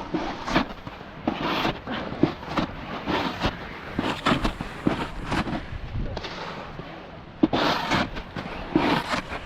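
Snowboard scraping and skidding over snow in irregular, crunchy bursts as the rider slides down a steep slope.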